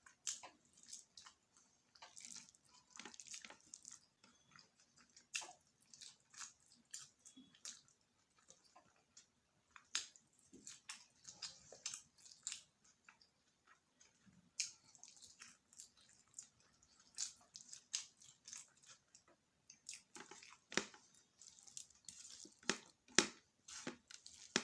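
Close-up mouth sounds of cheese macaroni being chewed and eaten by hand: many short, irregular clicks and smacks with no steady rhythm.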